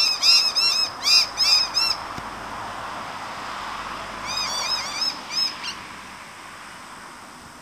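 Juvenile grey butcherbirds calling: short, squawky notes that rise and fall, repeated a few times a second in two bouts, one at the start and another about four seconds in.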